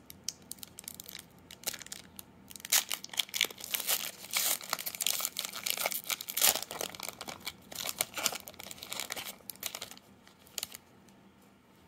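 Baseball card pack wrapper being torn open and crinkled by hand, a dense run of irregular crackles that dies away about a second before the end.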